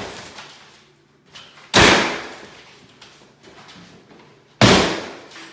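Sledgehammer blows against a drywall-covered half-wall: two heavy impacts about three seconds apart, each fading over about a second.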